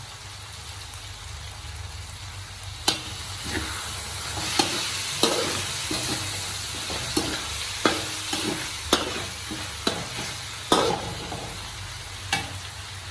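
Minced pork frying in a steel wok while a metal spatula stirs it, scraping and knocking against the pan. There are about nine sharp clanks from about three seconds in, over a steady sizzle that grows louder.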